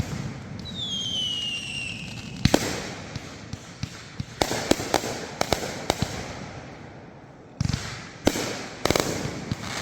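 Fireworks going off: irregular sharp bangs and pops, several close together. A falling whistle sounds about one to two seconds in.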